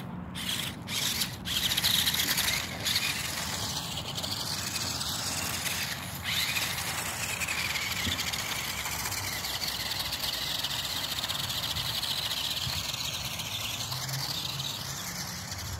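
Toy-grade RC buggy's small electric motor and gearbox whining steadily as it drives over loose dirt and climbs a dirt bank, with a brief louder spell a second or two in.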